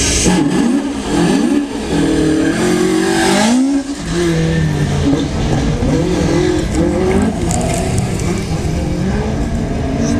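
Rally car engine revving hard, its pitch climbing and dropping again and again, with a short dip about four seconds in.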